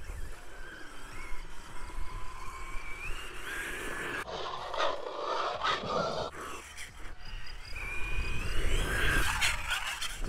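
Whine of a 1/10-scale XLF F11A RC off-road truck's brushless electric motor as it drives through tall grass, the pitch rising and falling with the throttle. Rustling noise from the grass and tyres comes in about four seconds in and again near the end.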